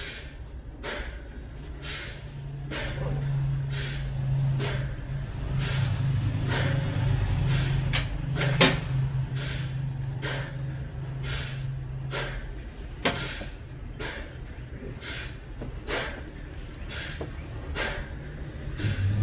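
Sawmill machinery running: a steady low engine hum with a sharp hissing stroke repeating about once a second.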